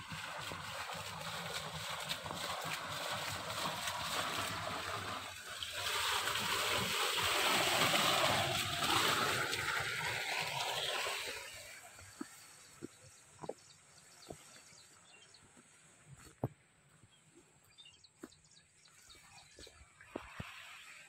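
Spring water pouring from a metal pipe spout and splashing onto rocks, a steady rush that grows louder about six seconds in and fades away at about twelve seconds. After that it is quiet, with a few scattered sharp clicks.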